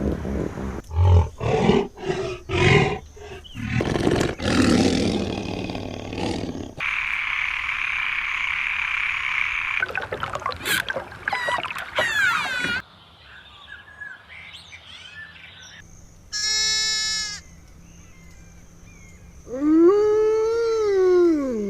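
A string of different farm animal calls cut one after another: rough pulsing calls at first, then a few seconds of hiss, shrill high cries, a short steady-pitched call, and near the end a long call that rises and then falls in pitch.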